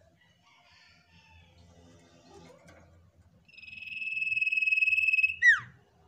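A common iora singing: a long, steady, slightly trilled whistle, held for nearly two seconds and growing louder, ends in one short, sharp downward-slurred note. Softer, faint chattering notes come before it.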